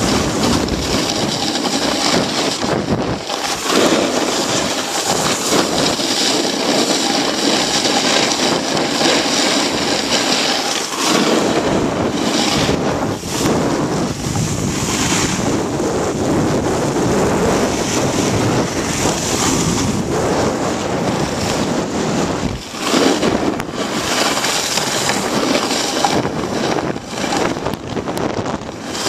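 Steady rushing rumble inside a moving gondola cabin as it travels along its cable, with wind noise on the microphone.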